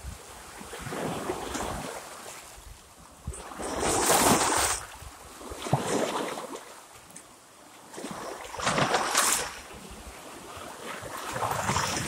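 Small waves washing in and splashing against shoreline rocks, surging in separate splashes every few seconds, the loudest about four seconds in and another strong one about nine seconds in.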